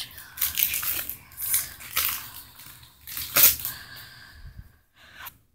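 Foil Pokémon booster-pack wrapper crinkling and being torn open by hand: a run of crackling rustles, loudest about three and a half seconds in, fading to small rustles near the end.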